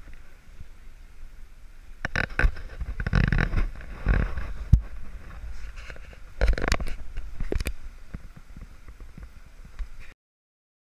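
Wind buffeting the microphone and sea rushing along the hull of a sailing yacht under way in choppy water, coming in uneven swells a second or two long. The sound cuts off abruptly near the end.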